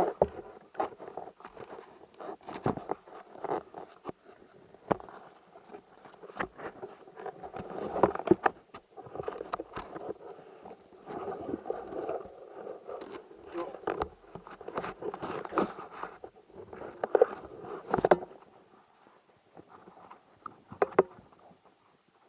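Irregular scraping, clicks and knocks, with several sharper knocks standing out, the loudest about 18 seconds in.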